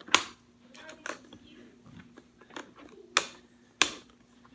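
Sharp plastic clicks and knocks from hands working at a zip tie on a Nerf blaster: a loud click at the start, another about a second in, two more loud ones around three and four seconds in, with smaller ticks between.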